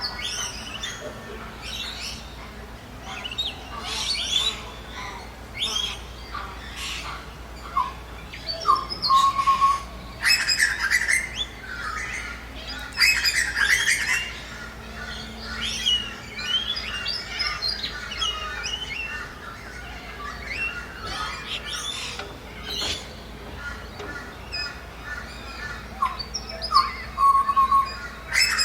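Dawn chorus of many Australian birds calling over one another: chirps, short whistles and louder squawks, with a steady low hum underneath.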